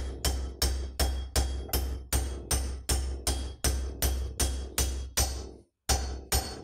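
A steel bearing driver, worked up and down by hand, hammers a main-bearing inner race onto a Norton Commando 850 crankshaft at nearly three blows a second. Each blow has a dull thud and a metallic ring. The blows pause briefly near the end, then two more follow as the race is driven home.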